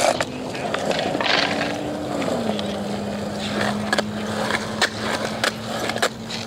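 Skateboard wheels rolling over smooth concrete, a continuous rumble with scattered sharp clicks and knocks from the board.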